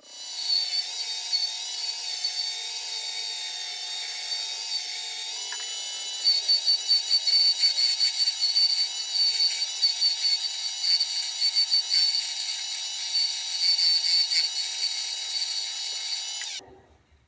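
Wood lathe spinning a maple handle blank while a turning tool cuts the wood, a steady hiss with high whine that pulses in quick uneven strokes from about six seconds in. It stops abruptly near the end.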